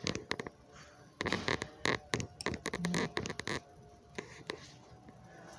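Newborn baby sucking on a propped-up bottle: an irregular run of small wet clicks and smacks from about a second in, lasting a couple of seconds, with one short low grunt among them.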